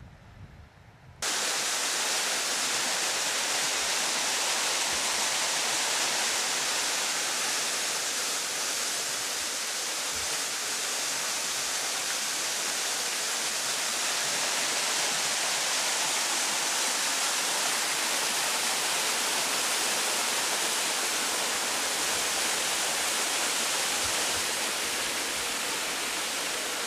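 Small waterfall pouring into a rocky pool: a loud, steady rush of falling water that starts abruptly about a second in, after a faint rumble of wind on the microphone.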